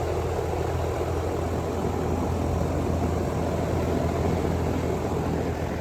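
Lennox Elite 5-ton two-stage central air conditioner running steadily in full (high-stage) mode: a constant low hum under an even rush of noise.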